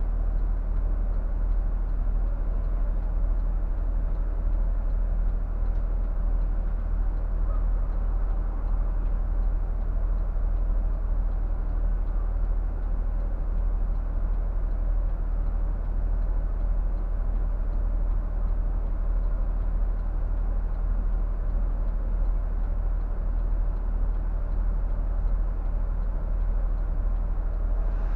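Scania K124 coach's 12-litre straight-six diesel idling steadily while parked, a constant low rumble heard from inside the driver's cab.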